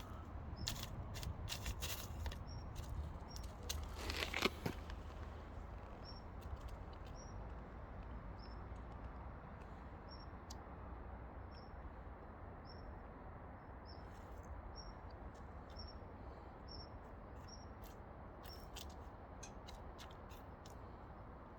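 Short high chirps repeating about once a second, a small bird calling, over a low steady rumble. Scattered clicks and a brief rustling scrape come about four seconds in.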